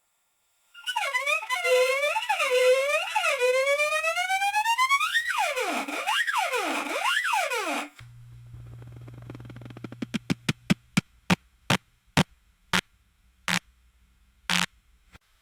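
Electronic synthesized sound effect: warbling, theremin-like tones that swoop up and down for about seven seconds. Then a low hum with a run of clicks that slow down and stop.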